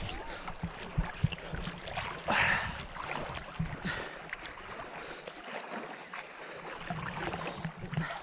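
Lake water splashing and sloshing close to the microphone as someone moves around in it, with scattered small knocks and one louder splash about two and a half seconds in.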